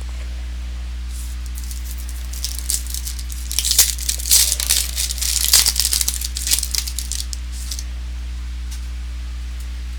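Crinkling and tearing of a trading-card pack wrapper being opened, a run of irregular crackles from about two and a half seconds in to about eight seconds, loudest in the middle. A steady low electrical hum sits under it throughout.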